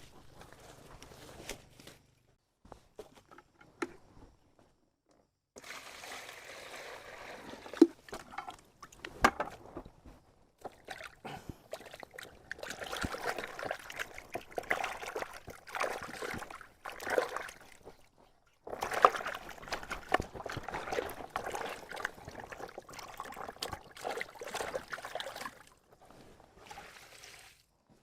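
Water sloshing and splashing in uneven bursts, with a few sharp knocks and short breaks.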